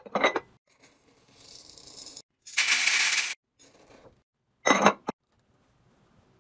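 Glass jar lid lifted with a clink, then a metal scoop digging into a jar of scent-booster beads, the beads rattling and pouring in a loud rush for about a second, followed by another sharp glass clink.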